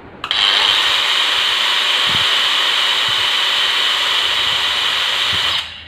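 DeWalt DWE4377 variable-speed angle grinder running free with no disc fitted, at speed setting 4 of its dial. The motor starts abruptly about a third of a second in, runs with a steady high whine, and winds down quickly near the end.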